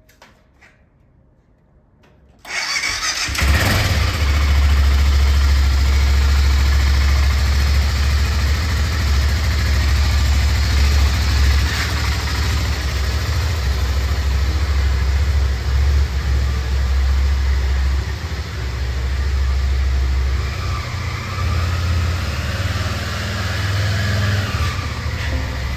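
A pressure washer starting up suddenly about two and a half seconds in and running steadily, a low motor hum under the hiss of the water spray.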